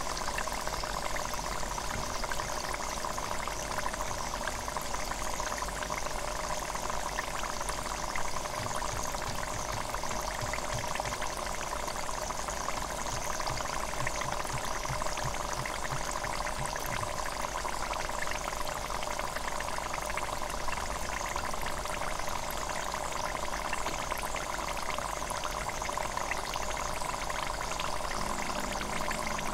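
Hot oil in a deep fryer sizzling and bubbling steadily around a frying loempia (spring roll), a constant sizzle with fine crackling.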